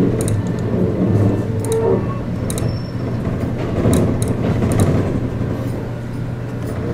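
Inside an ET127 series electric train car on the move: a steady low hum with wheel and rail noise and occasional light clicks.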